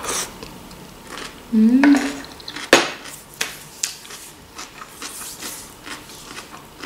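Crunchy chewing of a mouthful of fresh salad of cucumber and lettuce, with many small crackling crunches. A short hummed "mm" comes a second and a half in, and one sharp click comes just under three seconds in.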